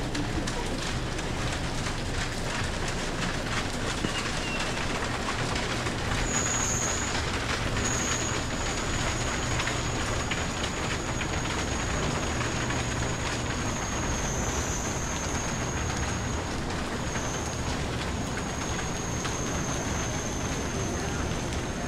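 Steady rain falling as an even hiss, with a low rumble underneath. About six seconds in, a thin, high, slightly wavering whine comes in and carries on.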